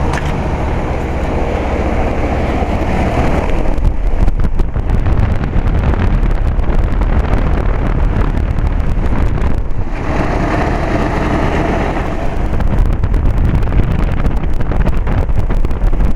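1999 Rheem 4-ton heat pump's outdoor unit running in cooling mode: a steady low hum from its Copeland scroll compressor under the even rush of the condenser fan. Wind crackles on the microphone through much of it.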